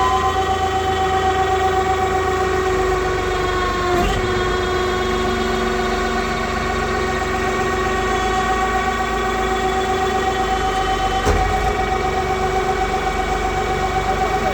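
Straw baling press machine running with a steady mechanical hum and whine, with a brief knock about four seconds in and another near eleven seconds.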